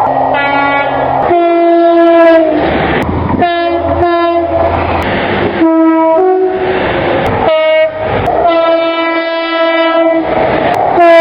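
British train horns sounding in a quick series of short, cut-together blasts, several of them two-tone, with the rumble of passing trains between. One longer blast comes in the second half, and a horn dropping in pitch as the train passes comes at the end.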